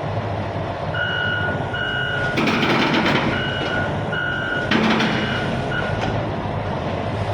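Hitachi ZX870-5G excavator's diesel engine running steadily while its travel alarm beeps about six times in a regular high-pitched pattern, then stops. A burst of clattering comes about two and a half seconds in, and a sharp clank comes near five seconds.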